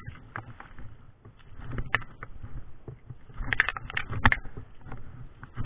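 Irregular clicks, knocks and rustles of handling a freshly caught sea bass hanging from its lure, with a cluster of louder knocks a little past halfway.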